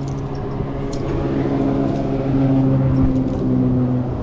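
An engine running steadily with a low, even drone that swells a little in the middle. Scattered light clicks and rustles sit over it.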